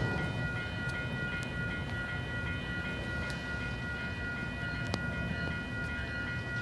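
Level-crossing warning bell ringing fast and steadily at a railway crossing while its signal lights flash, over a low steady rumble.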